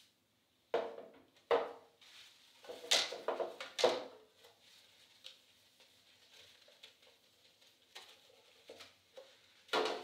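Clear plastic storage cases being handled and set down on a wooden table: a series of plastic clacks and knocks, four louder ones in the first four seconds, a few softer ones later and one loud knock near the end.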